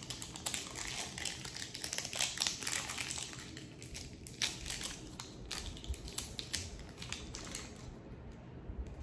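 Plastic wrapping on a Treasure X Alien toy egg crinkling and crackling as fingers pick and peel at it, in a run of small irregular crackles that thin out near the end.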